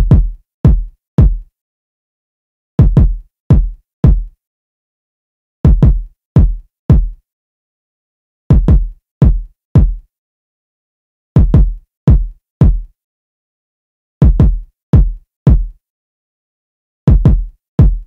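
Drill-style electronic kick drum loop at 168 BPM, on its own: short, deep, punchy kicks in groups of three, once four, each group repeating about every three seconds with silence in between.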